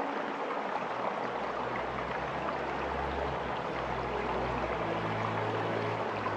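Flowing water from a river or stream, a steady rushing noise. Low held musical notes run underneath and shift pitch a few times.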